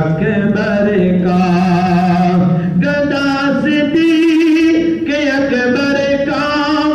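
A man singing an Urdu naat unaccompanied, holding long notes with a wavering pitch and moving to a new note every second or so.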